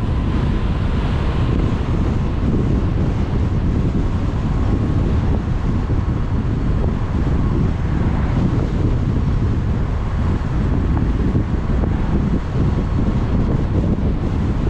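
Wind rushing and buffeting the microphone while riding a CSC City Slicker electric motorbike at road speed, a steady heavy rumble, with a faint steady high whine underneath.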